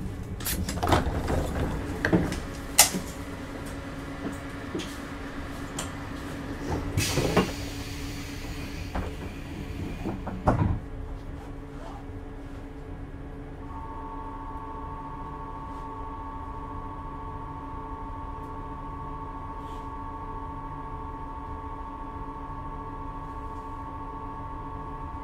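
Inside a JR 651 series electric train car standing at a station: a run of clicks and knocks, a short hiss of air about seven seconds in and a heavy thump about ten seconds in. Then a steady two-note electrical tone sounds over the even hum of the car's equipment.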